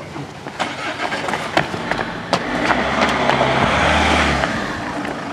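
A car approaching at close range, its engine and tyre noise swelling to a peak around four seconds in and then easing off, with scattered footsteps.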